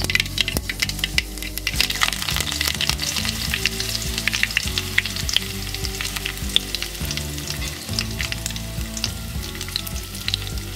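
Curry leaves and mustard seeds sizzling in hot oil in a steel pan, with sharp crackling pops and spatters over a steady hiss. The pops are thickest in the first few seconds and thin out toward the end.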